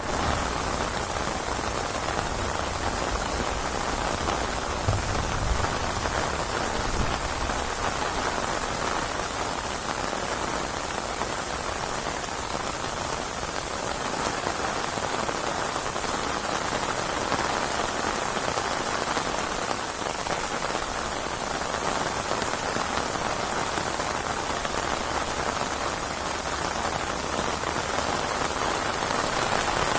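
Steady heavy rain pattering on surfaces, with a brief low rumble about five seconds in.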